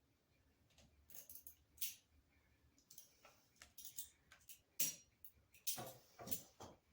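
Faint, irregular clicks and rustles of small parts being handled, a dozen or so short sharp sounds with the loudest near the middle and toward the end.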